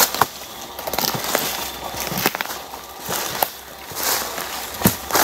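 Footsteps crunching through leaves and brushy undergrowth, in irregular steps with scattered crackles.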